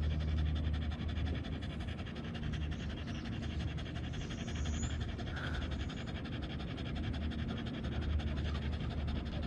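Small white terrier panting quickly and steadily with its tongue out, winded from a mountain climb.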